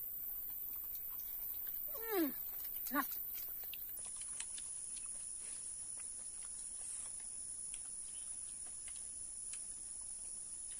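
Two short animal calls falling in pitch, about two and three seconds in, over a quiet outdoor background with faint small ticks.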